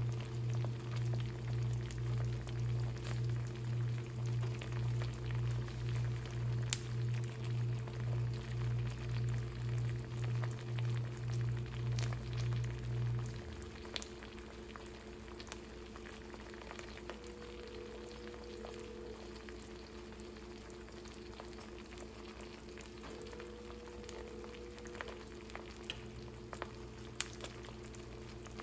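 Eggs in hot sauce frying in a nonstick pan, a light sizzle with a few sharp pops. Under it a low hum pulses about twice a second, stops abruptly about halfway through, and comes back faintly near the end.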